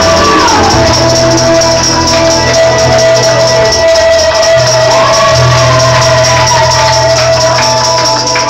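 Gospel song playing loudly, its melody held in long notes that slide between pitches over a steady bass line and a constant shimmer of tambourine-like percussion.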